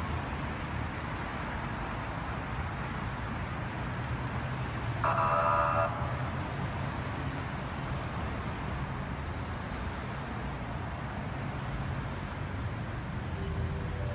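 Steady road traffic noise, a continuous low hum and hiss of passing vehicles. About five seconds in, a single steady tone sounds for about a second.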